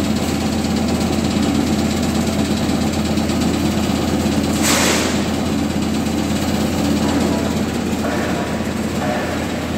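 Small two-deck vibro grader running with a steady vibrating hum. A brief hiss comes about five seconds in.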